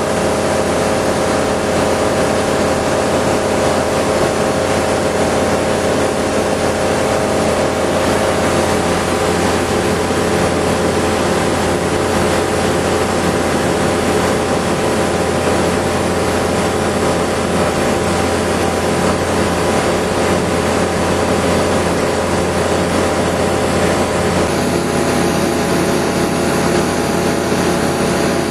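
Light aircraft engine and propeller droning steadily in cruise, heard inside the cockpit of a Flight Design CTSW with a steady hiss over the engine note. Its tone shifts a little about 25 seconds in.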